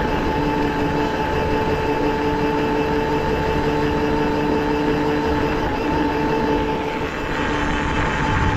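Quad bike running at a steady speed while ridden, with a steady whine over a rushing noise.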